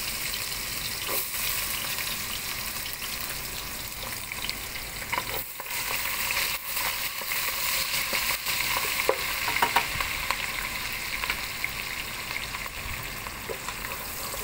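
Chopped onions frying in hot oil with a steady sizzle, stirred with a wooden spatula that scrapes and taps the pot now and then. The onions are being fried until they turn brown.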